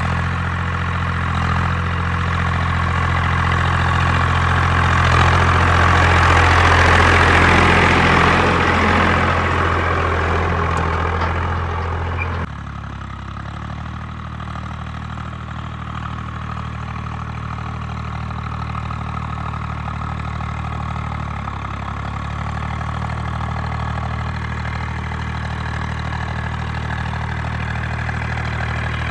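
Swaraj 744 tractor's three-cylinder diesel engine running steadily as it pulls an implement across a field. It swells as the tractor passes close, then after a sudden cut about halfway through it is fainter and slowly grows louder as the tractor approaches again.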